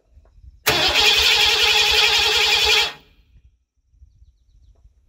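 Starter motor cranking the single-engine modified tractor's engine over with the ignition off, for about two seconds, starting and stopping abruptly without the engine firing.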